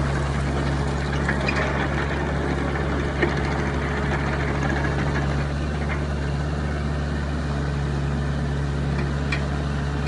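Hitachi ZX-30 mini excavator's diesel engine running steadily, with two short clicks from the machine, one about a third of the way in and one near the end.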